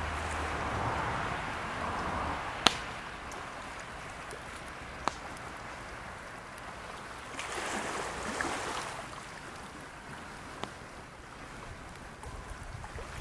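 Lake water washing on the shore with some wind, in a steady wash that swells for a second or two near the middle. Three sharp clicks stand out, the loudest a few seconds in.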